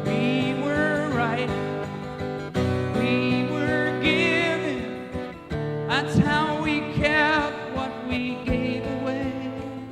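Live acoustic music: acoustic guitar chords with a wavering, held melody line on top that comes in phrases.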